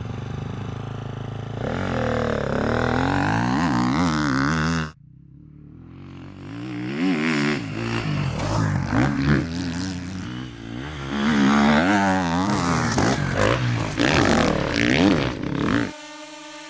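Four-stroke enduro motorcycle engine with an Akrapovic exhaust revving. It climbs steadily in pitch until an abrupt cut about five seconds in, then revs up and down over and over with quick throttle blips, and stops shortly before the end.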